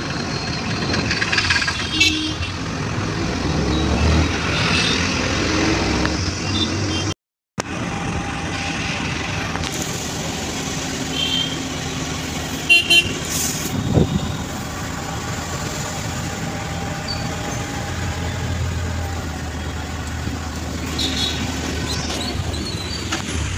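Road traffic noise from inside a moving vehicle, with horns honking several times. The sound drops out for a moment about seven seconds in, then the ride continues inside a bus.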